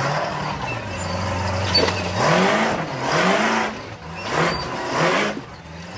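Unlimited 4400-class rock-racing car's engine running steadily, then revved in several bursts from about two seconds in as the car crawls down over boulders.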